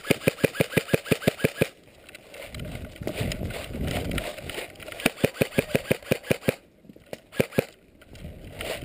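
Airsoft gun firing on full auto: a burst of about a dozen rapid shots at roughly eight a second lasting under two seconds, a second burst about five seconds in, and two single shots near the end.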